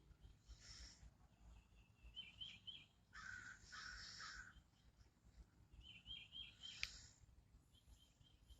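Faint birds: a crow cawing three times about three seconds in, with short runs of quick, high chirps from another bird before and after. A single sharp tick comes near the end.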